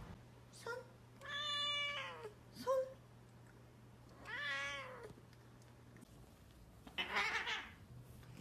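A cat meowing: two long meows that rise and fall in pitch, with short chirp-like calls before them, then a rougher, raspy call near the end.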